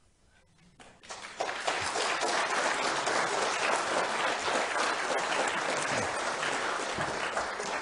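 Audience applauding, starting about a second in and beginning to die away near the end.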